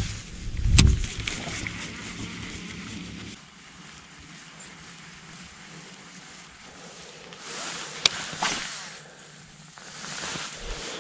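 A boat's electric trolling motor hums steadily and shuts off about three seconds in, after a thump near the start. Around eight seconds in, a baitcasting rod is cast: a sharp click, then the line whirring off the spool.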